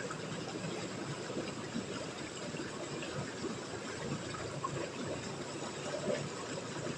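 Steady rush of flowing river water, with a faint low hum underneath.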